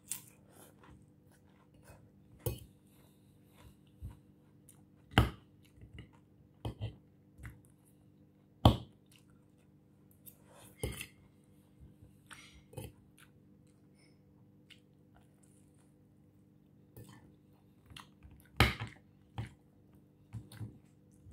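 Close-up chewing of crisp lettuce salad, with scattered sharp clinks and taps of a metal fork against the plate; the loudest come about 5, 9 and 19 seconds in.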